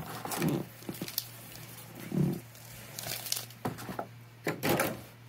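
Rigid clear plastic blister tray being handled and moved about: crackling and clattering in several separate bursts, the loudest about half a second in, about two seconds in and near the end.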